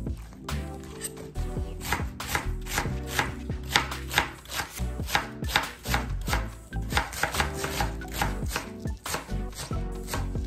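Chef's knife chopping napa cabbage on a wooden cutting board, a steady run of sharp chops about three a second as the blade cuts through the leaves onto the board.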